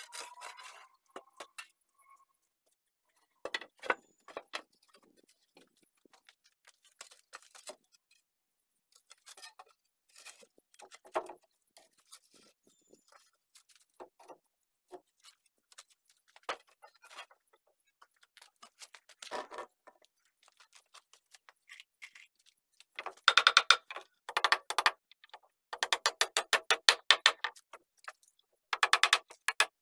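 Scattered light knocks and clatters of wooden boards being handled, then in the last few seconds loud bursts of quick, repeated hammer strikes on a wooden plank, several blows a second with short pauses between bursts.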